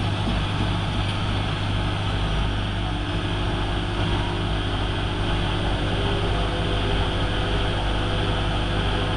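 Hotpoint Aquarius WMF70P washing machine running, a steady motor hum with no change in speed.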